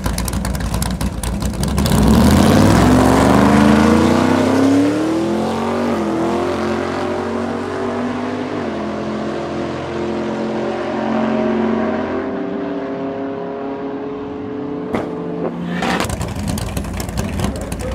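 The 900 hp Chevrolet Corvette C3's naturally aspirated 9.3-litre big-block V8 launching hard beside another car: the engine rises steeply in pitch about two seconds in, the loudest part, drops back with upshifts several times and fades as the cars pull away. After a break near the end, a big-block V8 runs close by with a rough, crackling rumble at the start line.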